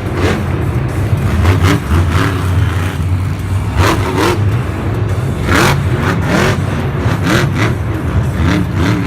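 Monster truck engine running hard, revving up and down again and again, with several short sharp bursts of noise over it.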